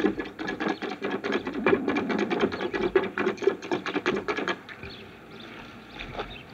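A town crier's small rope-tensioned drum beaten rapidly with a padded stick in a quick, even roll of strokes that stops about four and a half seconds in.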